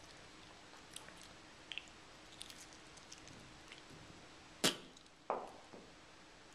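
Lip smacks and small mouth clicks, then a sharp pop from the lips about four and a half seconds in, followed by a short puff of breath that quickly dies away.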